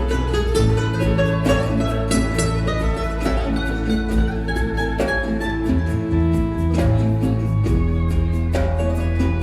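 Live band playing an instrumental nuevo flamenco piece: plucked acoustic guitar lines over bass and a steady percussion rhythm.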